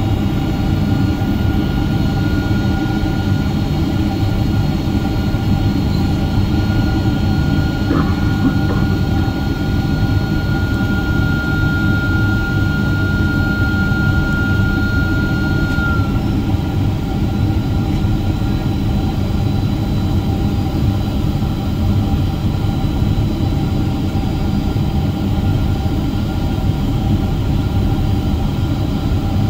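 Steady cabin noise of a Boeing 767-400ER on final approach, from its General Electric CF6-80C2 turbofans and the airflow over the airframe. A thin high whine rides over it, grows louder, and cuts off sharply about sixteen seconds in. There are a couple of faint clicks about eight seconds in.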